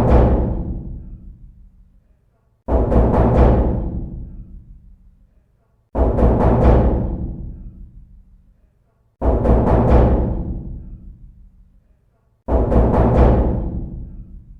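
Door knocking: sets of a few quick, heavy knocks repeating about every three seconds, each set booming and echoing away over about two seconds.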